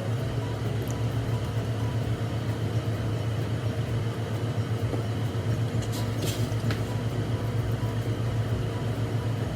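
Steady low mechanical hum, with a few faint clicks about six seconds in.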